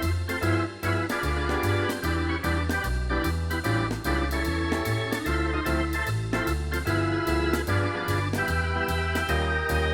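Upbeat background music: a keyboard melody over a bass line that steps from note to note, with a steady beat.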